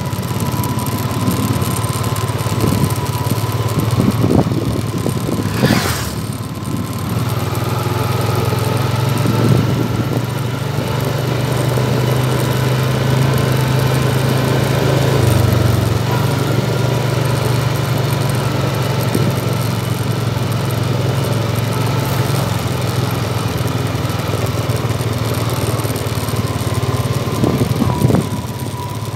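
Quad bike engine running steadily as it carries two riders along a dirt track, with a short knock about six seconds in.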